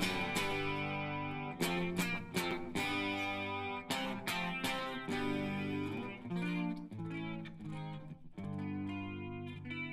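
Guitar strumming chords in the instrumental close of a song, each chord ringing on, with the playing thinning out and fading near the end.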